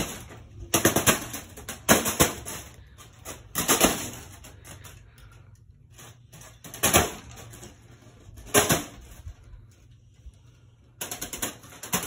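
Spinning ceiling fan blades repeatedly whacking a foil balloon: a rapid clatter of slaps that comes in about six bursts, with quieter gaps between them. It sounds like a gun.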